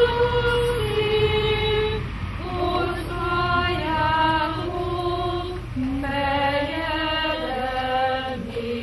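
Voices singing a slow melody with long held notes, typical of an Advent song sung at a candle-lighting.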